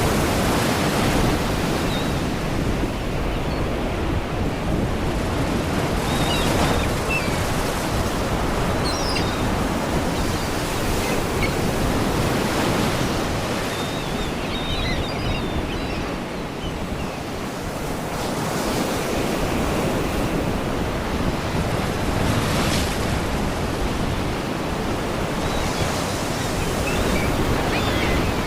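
Sea waves washing against rocks in a continuous rush of surf that surges every few seconds, with faint seagull cries now and then.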